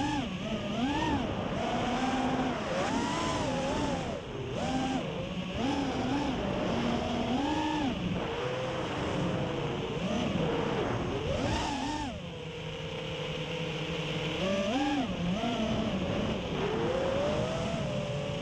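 Racing quadcopter's four brushless motors (BrotherHobby Returner 2207 2700kv on 5S) and propellers whining, the pitch swooping up and down with throttle punches and turns, holding level for a moment about two-thirds through before climbing again. Heard from the onboard camera, with wind rushing over it.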